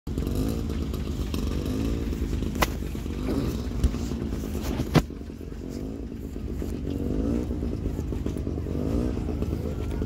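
Vintage tractor engines running, their pitch rising and falling a little, with three sharp clicks, the loudest about five seconds in.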